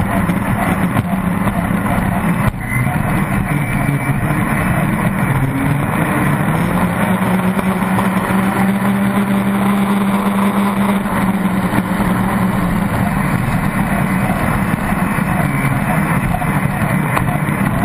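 Pro stock race boat's inboard engine running hard at speed, with water and wind rushing past the hull. A brief dip about two and a half seconds in, and the engine note holds steadier through the middle.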